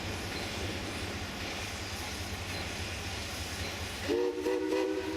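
A steady low rumble, then about four seconds in the steam whistle of a 2-8-0 steam locomotive sounds briefly, in short pulses of a chord of several notes.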